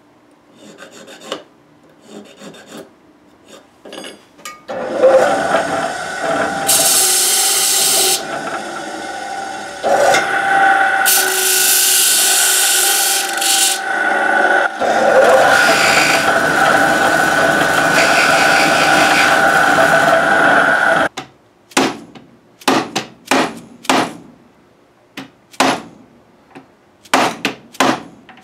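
A hand file scraping in short strokes across the tang of a piece of nickel fret wire. Then a motorised disc sander runs steadily for about sixteen seconds, turning harsher twice as the fret wire is pressed against the abrasive disc. It cuts off, and a run of sharp taps follows as the fret is tapped home into its slot in the ebony fingerboard.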